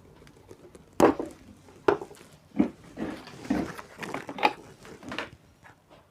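Tools and small hard objects being handled on a workbench: a series of irregular clicks and clatters, the sharpest about a second in.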